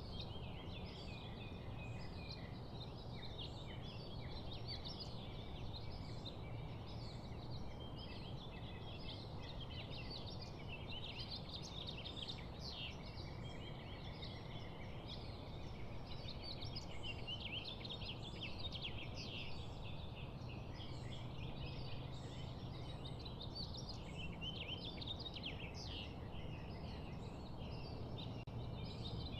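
Many small birds chirping and chattering continuously, a dense overlapping mix of short high calls, over a steady low background hum.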